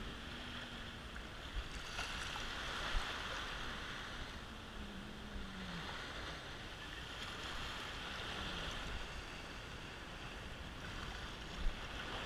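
Small waves washing and water swishing in the shallows, a steady hiss that swells and eases.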